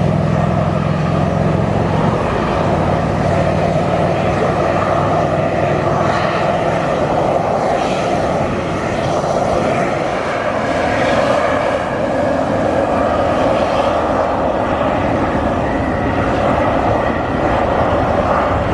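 Beryl Spring, a Yellowstone hot spring, boiling and surging while its steam vent hisses: a loud, steady rush of churning water and escaping steam.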